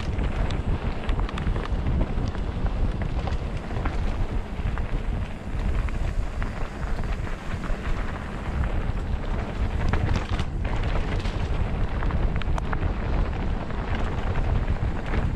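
Wind buffeting the microphone of a camera riding along on a mountain bike going down a trail, with a steady low rumble and constant small clicks and rattles from the tyres and bike over rough dirt.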